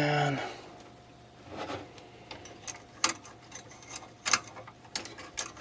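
Scattered sharp clicks and light metal taps of a CPU heatsink's spring retention clip and a screwdriver being worked against the heatsink. The clicks come a few seconds apart at first, then several in quick succession near the end.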